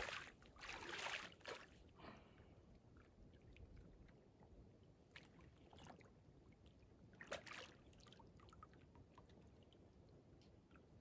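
Near silence outdoors, broken by a few brief soft rushing sounds in the first second or so and again about seven seconds in.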